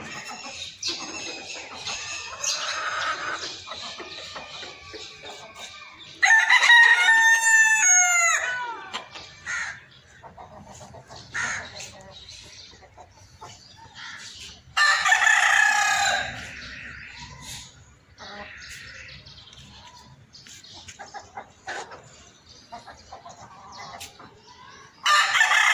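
Rooster crowing, a long crow with a falling end about six seconds in and another around fifteen seconds, with a third starting near the end; hens cluck softly between the crows.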